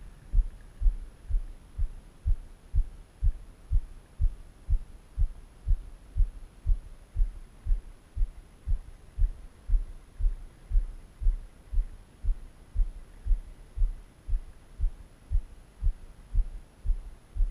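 Steady, evenly spaced low thumps, about two a second, like a heartbeat, over a faint hiss.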